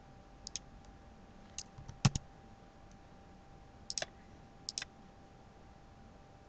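A handful of separate computer mouse clicks and keyboard key presses, several coming as quick pairs of clicks, the loudest about two seconds in with a dull knock beneath it.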